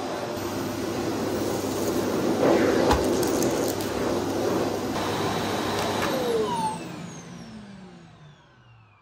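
Bush bagless cylinder vacuum cleaner running on carpet with its floor tool, with a few light knocks near the middle. About two-thirds of the way in it is switched off: the motor's whine falls in pitch and fades as it spins down.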